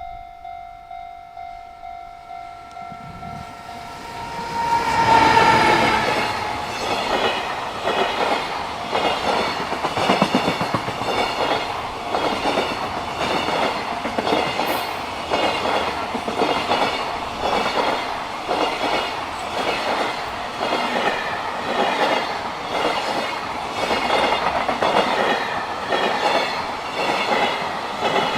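Level-crossing warning bell ringing in steady pulses, about two a second, then a freight train arrives about four seconds in and runs past, its wagons' wheels clattering rhythmically over the rail joints.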